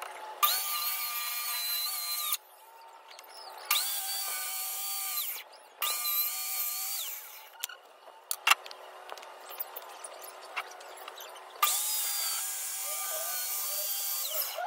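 Corded circular saw cutting wooden boards in four runs of about two to three seconds each. Each time the motor whines up to speed, holds and winds down. A single sharp knock comes between the third and fourth runs.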